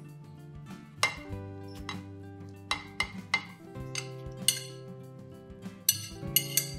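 A metal spoon clinking and scraping against a china plate and a glass bowl as grated zucchini is pushed off the plate: about nine sharp, irregular clinks, several close together near the end, over soft background music.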